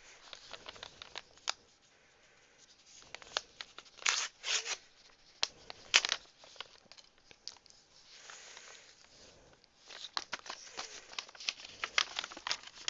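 Packaging being opened by hand: scattered rustling, crinkling and short tearing sounds, with louder tears about four and six seconds in and a run of small crackles near the end.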